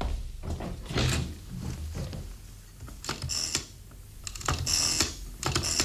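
A rotary telephone being dialled: the dial is pulled round and ratchets back with a run of clicks, several digits in a row.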